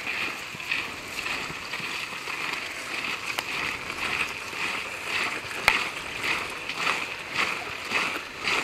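Footsteps of a column of men marching in step with shouldered muskets, a regular scuffing crunch a little under two steps a second. Two sharp clicks of gear stand out partway through.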